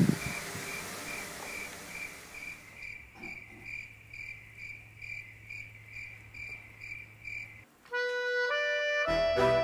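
Crickets chirping in a steady rhythm of about three chirps a second over a low steady hum, with a second, higher chirping joining about three seconds in. Both stop abruptly near the end, and music starts.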